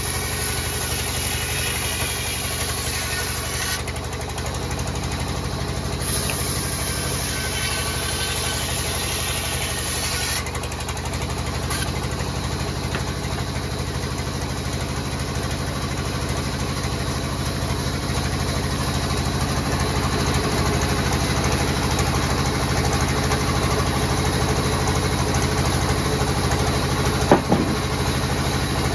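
Belt-driven band saw mill running steadily, its blade cutting through a thick hardwood slab in the first part. A single sharp knock near the end.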